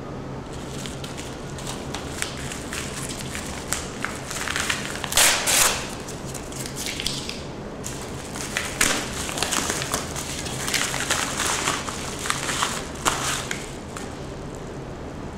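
Padded kraft bubble mailer being torn open and handled: a loud rip of the flap about five seconds in, then a run of paper crinkling and rustling as the envelope is pulled open and shaken, quieter near the end, over a faint low hum.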